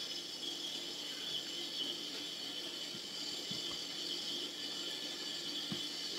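Steady high-pitched background drone, with a few faint soft knocks.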